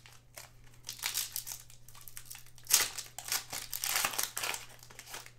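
Foil trading-card pack wrapper of a Panini Mosaic basketball blaster pack being torn open and crinkled by hand: an irregular run of crackling rustles, the sharpest about three seconds in.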